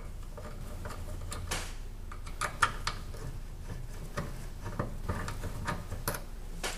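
Irregular small metallic clicks and ticks as a 1/8 inch Allen key turns screws into a metal valve bracket, over a low steady hum.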